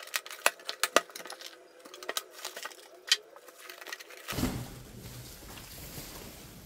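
Packaging being handled: a run of sharp crackles and clicks from the cardboard box and its packing tape, then from about four seconds in a softer, steady rustle of the monitor's plastic protective sleeve being pulled back.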